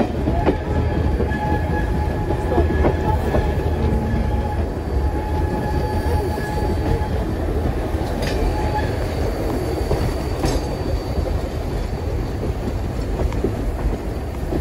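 Vintage passenger train carriage running along the track, heard from an open window: a steady rumble of wheels on rail. A few sharp clicks come over rail joints. A faint thin whine sounds through the first half and then fades.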